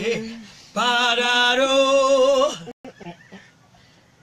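A woman singing unaccompanied gospel into a studio microphone: the tail of one held note, then a long wavering sung phrase of about two seconds that breaks off, leaving quiet room sound.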